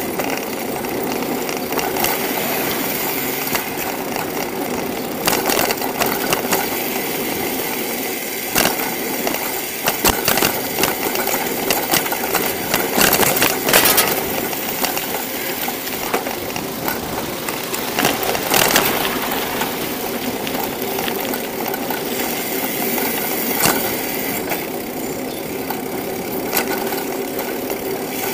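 A bicycle being ridden: a steady rush of tyre and wind noise with frequent rattles and knocks, thickest around the middle.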